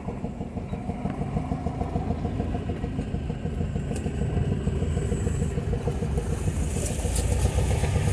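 A vehicle's engine running as it drives slowly over a log bridge and along an overgrown dirt track. The engine grows louder in the last couple of seconds, and a rushing noise joins it.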